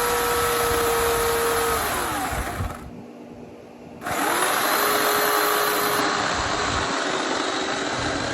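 Bauer 16-inch 14.5 amp corded electric chainsaw running with a steady motor whine, then coasting down and stopping about two and a half seconds in. It starts again about four seconds in and runs on at a slightly lower pitch under load, cutting through a thick log.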